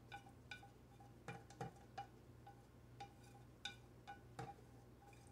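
Chopsticks tapping and scraping against a ceramic plate as food is pushed off it into a bowl: faint, irregular light clicks, each with a short ringing tone.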